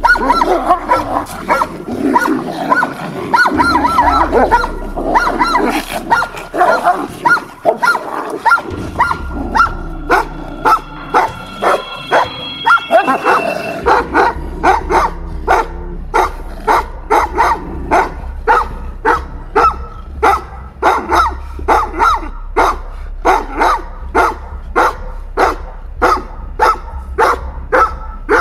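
Large livestock guardian dogs in a rank fight: dense snarling and growling for the first half, then steady barking at about two barks a second from about halfway through.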